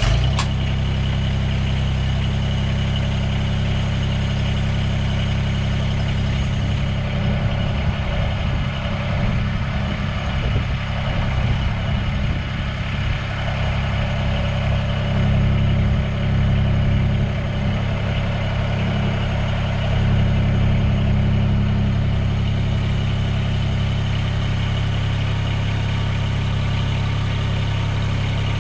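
Mahindra eMax 20S HST compact tractor's three-cylinder diesel engine catching right at the start and then running steadily near idle. The engine note swells a little around the middle and again about two-thirds of the way through.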